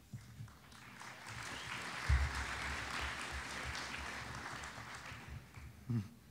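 Audience applauding in a large hall, building up about a second in and dying away near the end.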